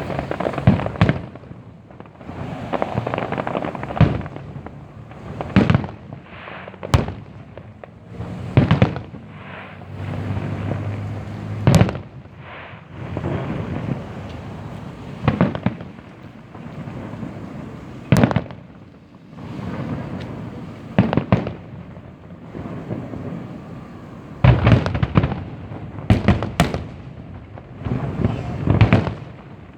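Aerial fireworks bursting, a steady run of sharp bangs every second or two, each followed by a rumbling echo, with several shells going off close together near the end.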